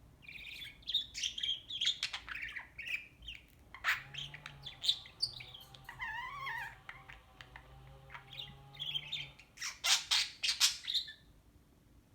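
Budgerigar chattering with quick high chirps and a wavering warble, breaking into loud harsh squawks about ten seconds in.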